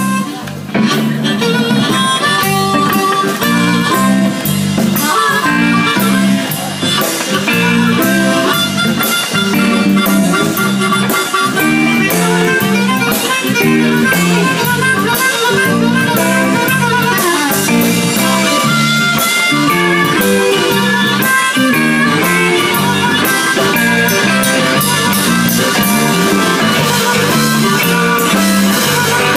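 Live blues band: two harmonicas played into microphones over electric guitar, bass guitar and drum kit, with a steady beat and fast harmonica runs.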